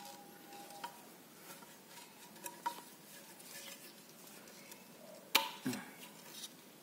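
Hands handling a snail-type electric horn and its plastic cover: faint plastic and metal clicks and rattles, with one sharp click about five seconds in.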